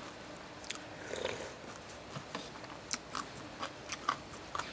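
Close-miked chewing and mouth smacks of a person eating tam sua, spicy Thai papaya salad with rice noodles: irregular wet clicks, with a few sharper ones in the second half.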